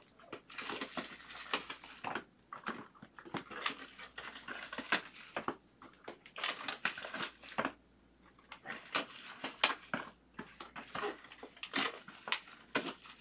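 Plastic shrink-wrap and foil trading-card packs crinkling and rustling in clusters as card boxes are handled, with light knocks among them.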